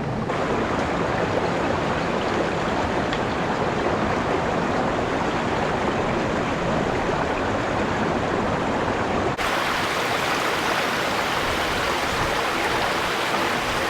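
Steady rush of a forest river stream tumbling over small waterfalls. After a brief dip about nine seconds in, the rush turns brighter and hissier.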